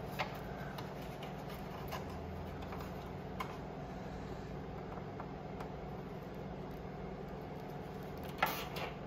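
A few faint clicks of hands handling wires and a plastic zip tie, then a short burst of sharper clicks near the end, over a steady low hum.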